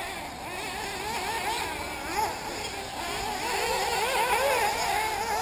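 Small two-stroke nitro engines of 1/8-scale RC off-road buggies, several at once, revving up and down, their pitch rising and falling quickly. They grow louder in the second half.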